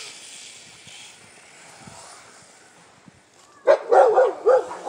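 A dog barking in a quick run of about five barks, starting nearly four seconds in, after a faint hiss that fades away.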